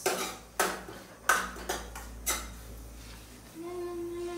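Kitchen utensil clatter: a metal spoon clinking against a steel frying pan and dishes, about five sharp knocks in the first two and a half seconds. A steady low hum begins near the end.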